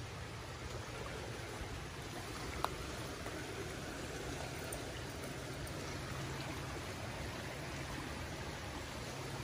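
Creek in flood, its fast muddy water giving a steady rush. One sharp click about two and a half seconds in.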